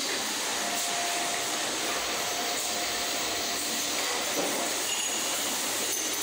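Steady mechanical noise of a gas spring factory's production hall, its automated assembly machines running, with a faint thin whine from about half a second to three and a half seconds in.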